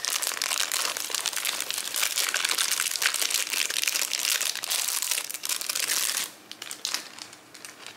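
Thin plastic snack packaging crinkling and crackling steadily as packets of roasted peanuts are handled and emptied into the bowl. The crinkling stops about six seconds in.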